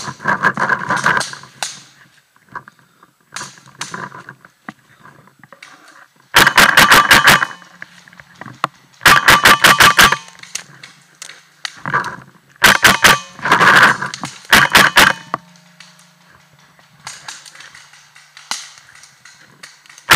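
Paintball markers firing several rapid strings of shots, about ten a second, starting about six seconds in, each string lasting about a second.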